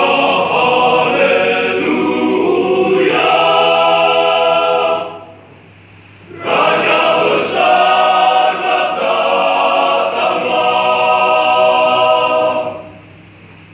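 Men's choir singing in parts, two loud sung phrases with a break of about a second and a half between them about five seconds in; the second phrase ends about a second before the end.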